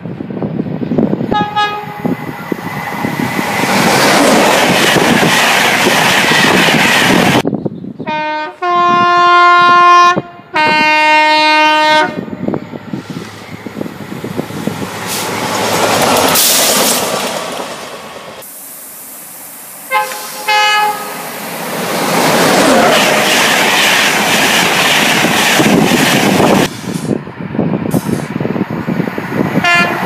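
Several trains passing at speed, each sounding its horn: a brief toot about a second in, then two long horn blasts from about eight seconds in, a higher note and then a lower one, which are the loudest sounds. Two short toots come around twenty seconds in and another near the end. Between them is the rush and wheel clatter of the passing trains.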